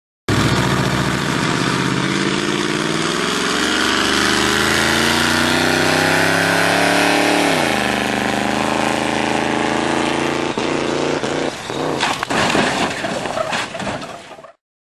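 A vehicle engine accelerating hard, its pitch rising steadily, easing down about halfway through and then holding. Near the end comes the crash into the guardrail: a cluster of sharp impacts and scraping metal.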